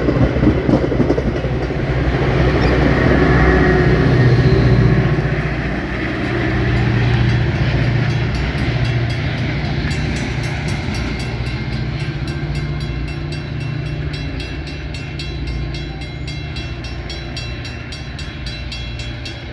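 A Metra commuter train passing, with a low, steady diesel drone and the rumble of wheels on rail. It is loudest in the first few seconds, then slowly fades as it moves away. About halfway through, a fast, even ticking of two or three a second joins in.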